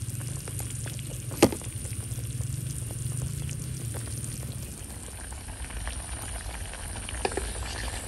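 Meat stew in broth boiling in an aluminium wok, bubbling with many small pops over a steady hiss. There is one sharper click about one and a half seconds in.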